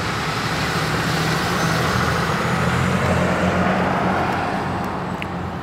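A pickup truck driving past on the road, its engine hum and tyre noise swelling to a peak midway and then slowly fading.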